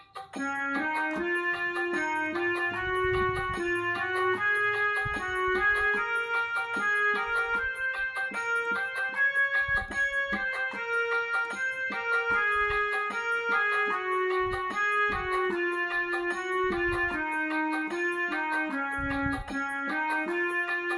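Yamaha PSR-E373 keyboard's single-reed harmonium voice playing a melody of held notes, starting about half a second in.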